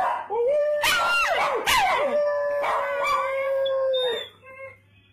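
Pug cross-breed dog howling: one long, steady, held note of about four seconds, with sharper falling yelps over it in the first two seconds, then a couple of short whines after the howl stops.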